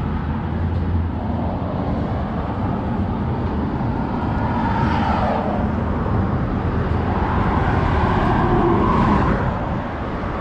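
Road traffic on a busy street: a steady wash of car noise, with passing cars swelling louder about halfway through and again later.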